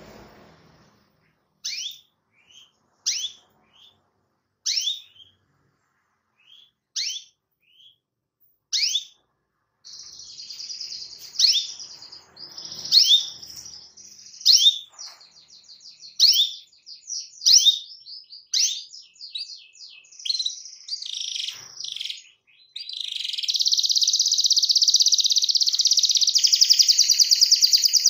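Domestic canary singing. For about ten seconds it gives sharp, falling 'cuit cuit' chirps, the call to a rival, about once a second. It then breaks into fast trilled song, which runs into a long, rapid rolling trill from about two-thirds of the way in.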